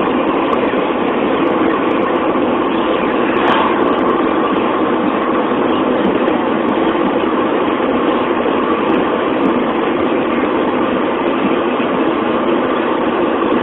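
Steady road and wind noise heard inside the cabin of a car driving at highway speed, the tyres and engine droning evenly throughout.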